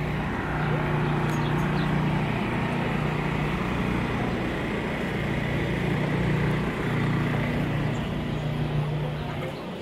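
An engine running steadily, a low hum that swells and dips, over general street noise.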